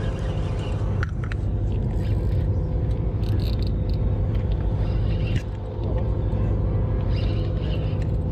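Steady low drone of a charter fishing boat's engine running, with faint light ticks from a spinning reel being cranked.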